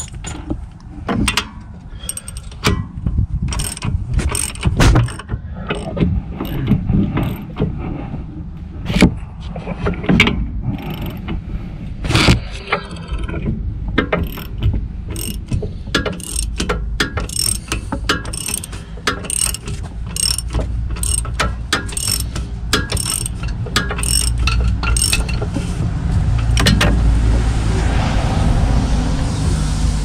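Hand ratchet wrench clicking as it tightens a rear brake caliper bolt, in runs of sharp clicks that settle into an even rhythm of about two a second, mixed with clinks of the socket and tools. A steadier rushing noise swells in the last few seconds.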